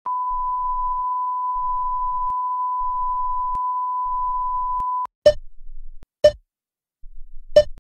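A steady 1 kHz beep tone, like a TV test-pattern tone, held for about five seconds and then cut off. Three short sharp blips follow, about a second apart.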